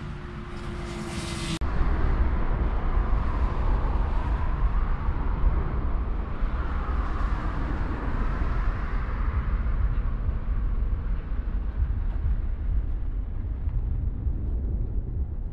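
Departing jet airliner's engines roaring, with a deep rumble, as it passes; the sound starts abruptly about a second and a half in and fades slowly toward the end.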